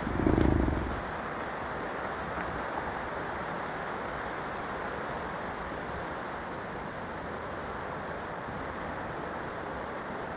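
A brief low grunt-like call lasting about a second, made as a bison sound effect for the extinct giant bison Bison latifrons, followed by steady wind-like rushing noise.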